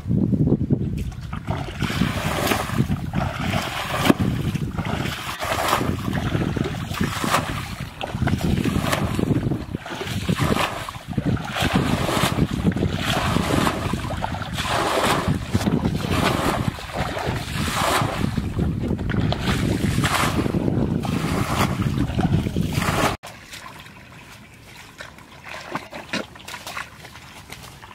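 Wind buffeting the microphone, with water splashing and sloshing as muddy water is bailed and scooped by bucket and by hand. The noise drops off suddenly near the end, leaving quieter splashing.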